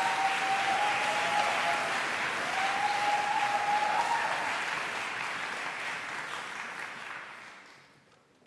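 Audience applauding, fading away near the end as the applause stops. A thin steady tone sounds over the clapping for the first few seconds.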